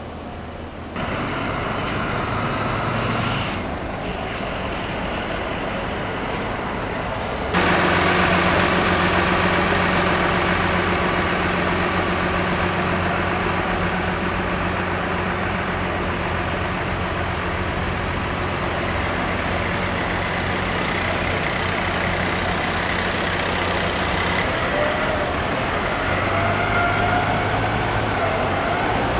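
FDNY MERV 2 mass-casualty response bus running steadily as it drives along and away, after a stretch of quieter street traffic noise. A higher whine rises briefly near the end.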